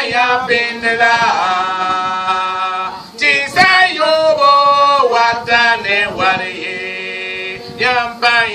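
Unaccompanied male voices singing a chant-like song in long held notes that slide up and down in pitch, with short breaks between phrases.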